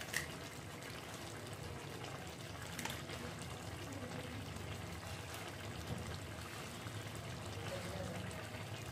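Fish-head and chana dal curry simmering softly in a kadai on a gas stove, a steady low bubbling, with a light tap about three seconds in.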